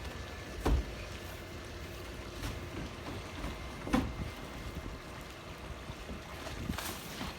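Steady outdoor background noise broken by a few sharp knocks from roofing work on a shingle roof: one about a second in and another about four seconds in.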